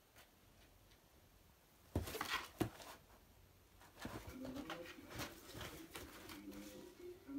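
Kitten scrabbling and clawing inside a cardboard box, the cardboard rustling and knocking in bursts from about two seconds in, with a sharp knock soon after. More scratching follows in the second half over a low wavering tone.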